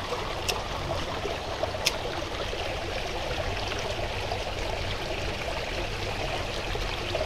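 Water of a small clear stream flowing and splashing over stones, a steady rushing sound. Two short high ticks come through it, about half a second and two seconds in.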